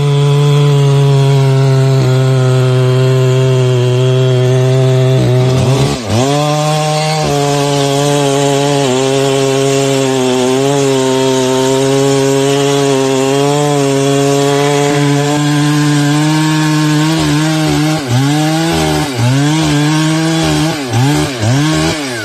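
Two-stroke chainsaw running at high revs while cutting through wood, its engine note holding steady for long stretches. About six seconds in, the revs dip sharply and recover, and near the end they drop and rise again and again.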